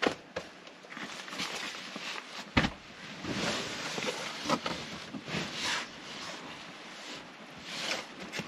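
Bedding rustling and shuffling as sheets and a blanket are handled and someone climbs onto a mattress, with scattered knocks and bumps; the loudest is a single thump about two and a half seconds in.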